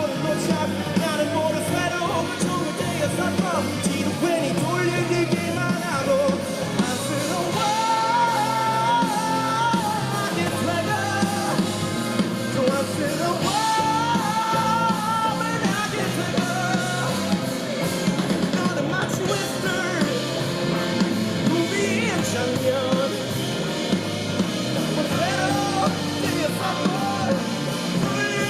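Live rock band playing, with a singer's voice over the band.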